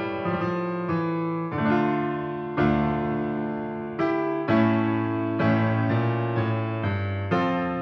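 Background piano music: slow, gentle chords struck about once a second and left to ring.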